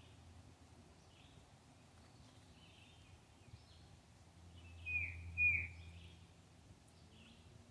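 Birds chirping faintly and intermittently, with two loud short bird calls about half a second apart around five seconds in.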